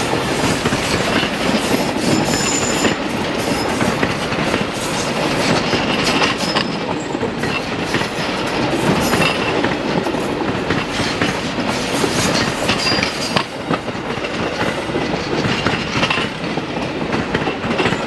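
Empty stake-sided freight wagons rolling past at close range: a steady rumble of steel wheels with clickety-clack over the rail joints and a few brief high-pitched wheel squeals in the first half.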